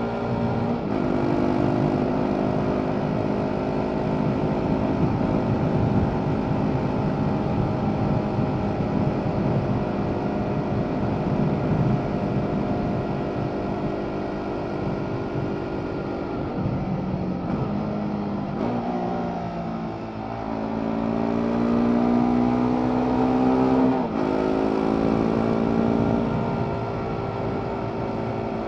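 BMW G 310 R's single-cylinder engine, stock Euro 5 exhaust, heard onboard while riding: it holds a steady cruise, dips about two-thirds of the way through, then rises under acceleration and drops suddenly at a gear change. Wind rush on the microphone runs under it.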